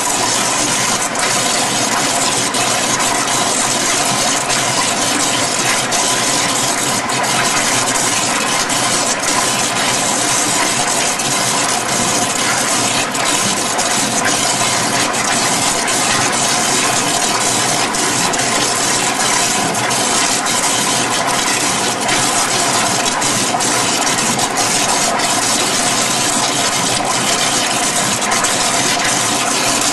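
Rotary evaporator running under vacuum: a steady rush of water through the water aspirator at full flow, with a steady whine from the spinning rotor and faint ticking throughout.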